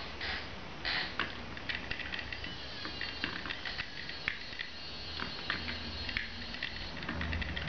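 Hand-cranked wooden kiwi automaton's mechanism clicking and clattering as the crank is turned, in quick irregular ticks of wood on wood.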